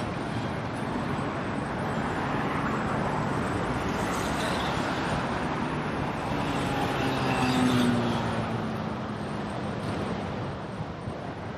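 City street traffic: a steady wash of passing cars, with one vehicle's engine swelling louder and passing about two-thirds of the way through.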